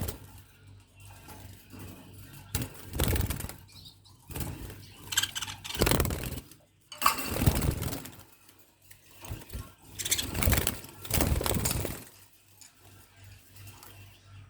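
Budgerigars fluttering: about seven short bursts of wing-flapping spread through the stretch, with some chirping among them.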